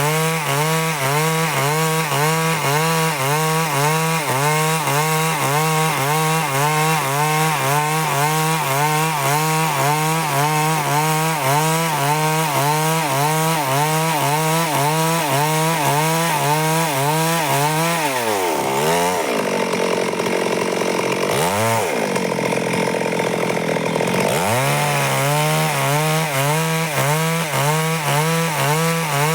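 Stihl chainsaw running at full throttle, cutting a log lengthwise into boards, with a steady, evenly wavering engine note. About 18 seconds in the pitch dips and the sound changes for several seconds, then it dips again and settles back into the same steady cut.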